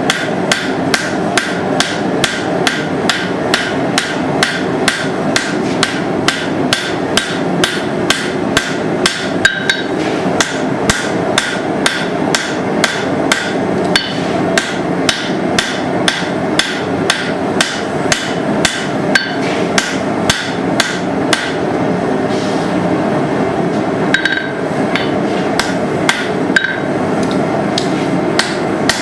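Hammer blows on hot steel at the anvil, forging a wrapped-eye tomahawk, struck at a steady pace of about two to three blows a second and thinning out briefly past the middle. A steady rushing noise runs underneath.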